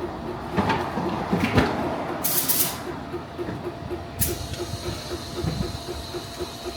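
Short hisses of compressed air in a tire shop, one a little over two seconds in and a sharper one about four seconds in, over a steady mechanical background with a light ticking about four times a second.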